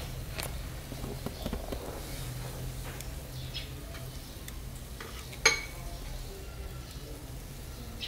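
Whole chicken roasting on a wire rack over charcoal: scattered small crackles and pops from the grill, with one sharp pop about five and a half seconds in, over a low steady hum.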